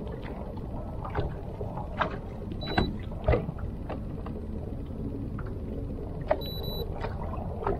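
Steady low rumble of a fishing boat on the water, with a few light knocks and clicks scattered through it. Two brief high beeps sound, one about three seconds in and a slightly longer one a little past six seconds.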